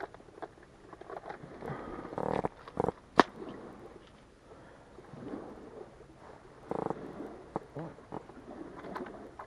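Hands working fishing line and small terminal tackle close to the microphone: scattered small clicks and rustles, with a sharp click about three seconds in.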